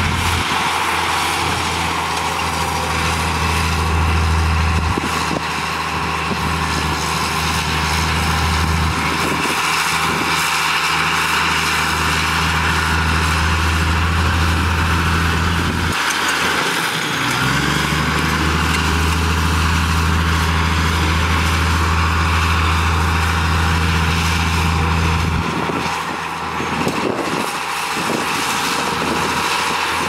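Komatsu crawler bulldozer's diesel engine running hard as the dozer pushes soil, a steady low drone over clattering mechanical noise. About halfway through the engine speed sags and then climbs back, and near the end it throttles down.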